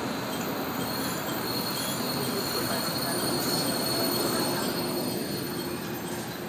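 KiHa 47 diesel railcar heard from inside the car as it slows for a station: a thin, high, steady squeal from the wheels and brakes over the running noise, dying away with the rumble about five seconds in.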